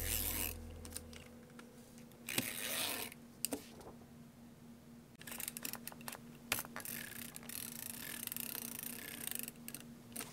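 Decoration tape roller run across paper, its small gear mechanism ticking and the tape rasping as it lays a row of little music-note stickers. It comes in several strokes, the longest about three seconds near the end, with a tail of background music dying away in the first second.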